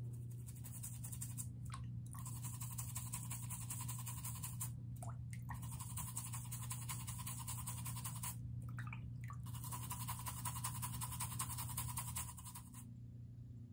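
Brush scrubbing the sole of a rubber sandal: rapid scratchy back-and-forth strokes in four runs with short pauses between them, stopping near the end. A steady low hum runs underneath.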